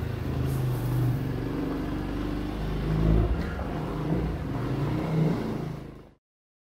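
Motorcycle engine running under way, its pitch rising and falling with the throttle. It fades out and cuts to silence about six seconds in.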